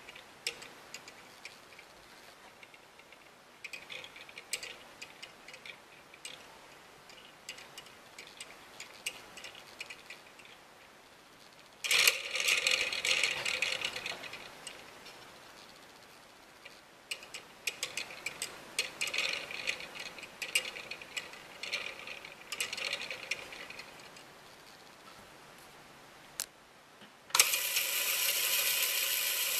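Lego Technic pin coupling turning slowly: its plastic pins and links click and rattle in scattered bursts, busiest about 12 seconds in. Near the end a Lego electric motor starts driving it, and a steady whir with fast plastic rattling carries on.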